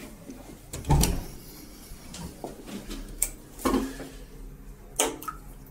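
Scattered handling knocks and clicks in a small tiled toilet room: a dull thump about a second in, then a few sharp ticks and a sharp click near the end.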